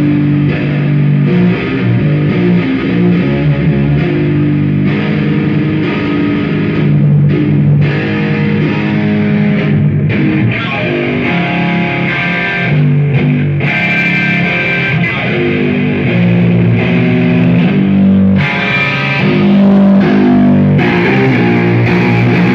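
Distorted electric guitar played in a low register, held notes and chords changing every second or so.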